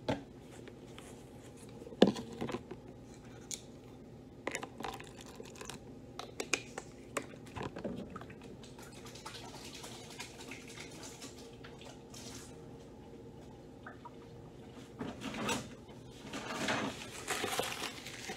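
Kitchen sink tap running in stretches as something is rinsed, with scattered clinks and knocks of dishes and utensils. A sharp knock about two seconds in is the loudest sound.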